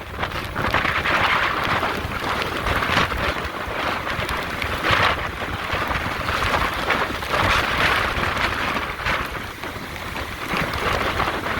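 Hurricane-force wind blowing hard and buffeting the microphone, with driving rain, surging in gusts every second or two.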